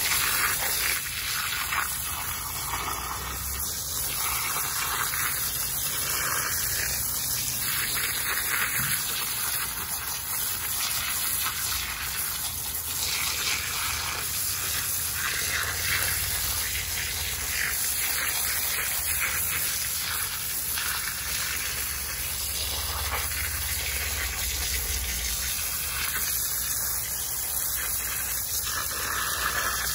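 A jet of water from a hose spray nozzle running steadily, blasting mud off a freshly dug aluminum anthill casting, with water and dirt splashing.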